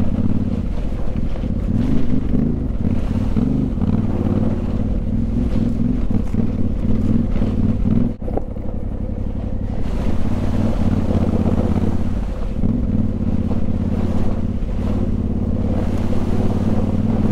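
Yamaha Ténéré 700's 689 cc parallel-twin engine running with a deep rumble as the bike rides a muddy gravel track, with tyre and wind noise. The sound drops briefly about eight seconds in.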